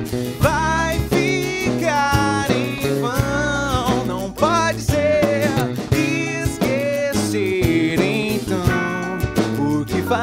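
Live band playing a song: drum kit, bass, acoustic and electric guitars, with a lead vocal singing over them.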